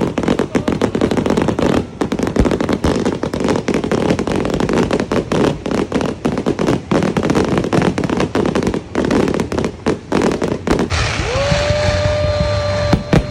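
Fireworks crackling overhead: a dense, continuous rattle of rapid sharp pops. About eleven seconds in, a steady held tone comes in over the crackle and drops in pitch at the very end.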